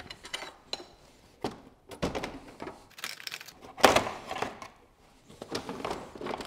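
Irregular clunks, knocks and plastic clattering as the engine-cooling fan and fan clutch are worked loose by hand and lifted out past the radiator, with the loudest knock about four seconds in.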